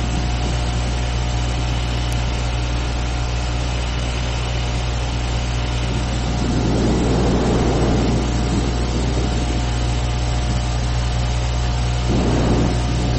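The installation's droning ambient soundscape: a steady low hum under a constant hiss, with a faint held high tone. A deeper, rougher rumble swells about six and a half seconds in and again near the end.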